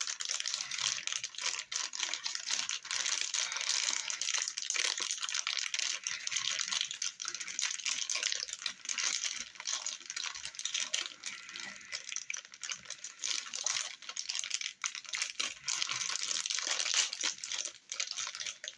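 Plastic packaging crinkling and crackling continuously as a small part is unwrapped by hand.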